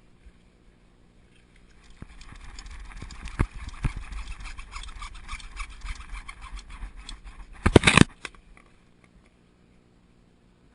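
Saw cutting through 1.5-inch PVC sump discharge pipe: a run of rasping strokes for about six seconds, with a few sharp knocks, ending in a short loud clatter near the end as the cut finishes.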